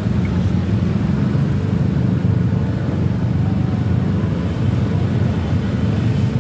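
Bus engine running steadily, the sound sitting mostly low in pitch with no horn playing.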